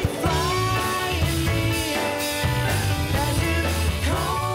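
Rock song playing, with a singing voice over guitar and bass.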